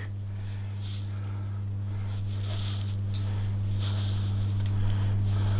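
Hands pressing and rolling raw pork spread with sage and onion stuffing on a cutting board, giving faint soft, wet squishing and handling sounds a few times. Underneath runs a steady low hum that slowly grows louder.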